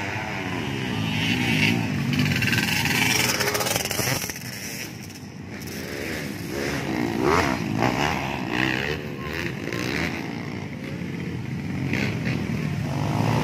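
Several dirt-bike engines revving and easing off as they race around a muddy track, their pitch rising and falling and overlapping. The sound dips about a third of the way through, then builds again.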